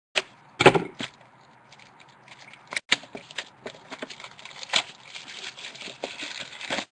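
Sports card box and packs being handled and opened: a few sharp knocks and clicks, the loudest about a second in, then crinkling and rustling of packaging that cuts off suddenly near the end.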